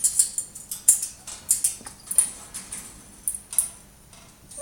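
African grey parrot making a string of short, sharp hissy clicks at an uneven pace, about two or three a second.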